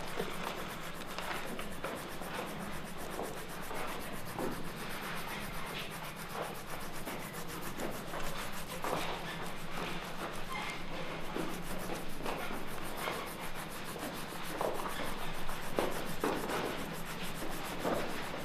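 Paintbrushes rubbing and scraping on canvas and palettes: a continuous rough scratching made of many short strokes, over a low steady hum.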